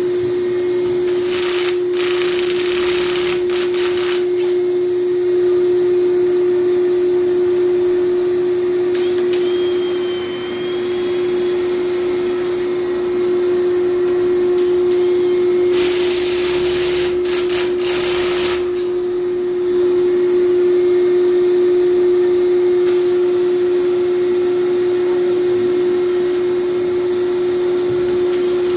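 A steady electric motor hum with one strong, unchanging tone. It is joined twice by a few seconds of loud hiss.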